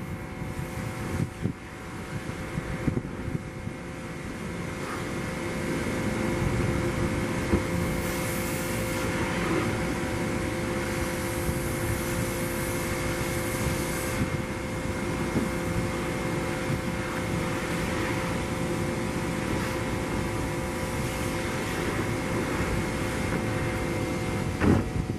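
2007 Ford F-450 bucket truck running, a steady mechanical hum with a fixed whine on top; it grows louder about five seconds in and then holds steady.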